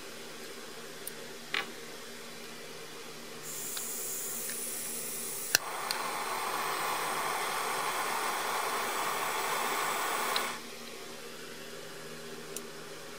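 Butane gas soldering iron releasing gas with a high hiss. About two seconds later a sharp click, likely the igniter, is followed by a louder, fuller rush as the gas burns. The rush cuts off suddenly about five seconds later.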